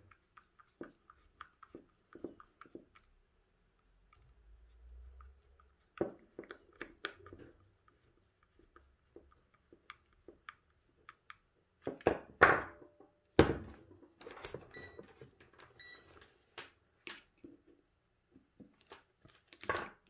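Scattered small clicks and taps from a screwdriver and a plastic power-tool battery casing being handled and set down on a wooden table as the casing screws are undone. There are a few louder knocks about twelve to fourteen seconds in, followed by two short electronic beeps a second apart.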